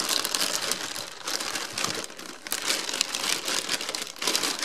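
A thin plastic bag crinkling and rustling continuously as it is handled and apples are pulled out of it.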